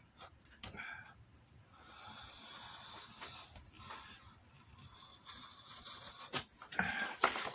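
Sharp knife blade drawn through thick chrome-tanned, oily Kodiak side leather: a faint scratchy rasp, with a couple of light taps near the end.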